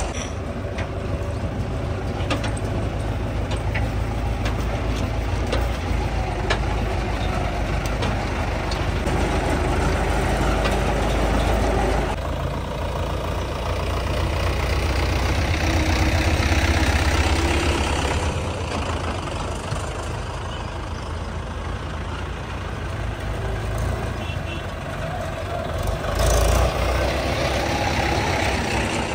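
Mahindra tractor diesel engine running, its revs shifting about a third of the way in and rising for a while in the middle, with a brief louder burst near the end.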